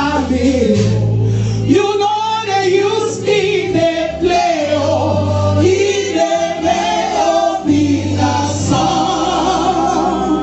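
Live gospel singing: a lead voice and choir voices over band accompaniment, with held low bass notes three times.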